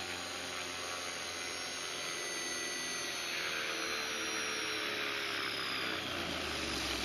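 Walkera V450D03 electric RC helicopter sitting on the ground with its brushless outrunner motor and rotor still turning: a steady whirring hum whose pitch falls slowly as it spins down after landing.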